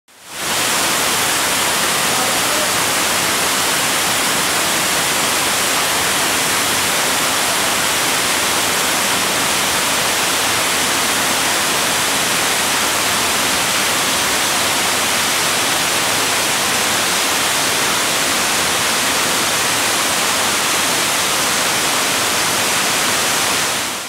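Fukuroda Falls, a broad waterfall sheeting down over tiers of rock, heard close up as a loud, steady, even rush of falling water that fades in at the start.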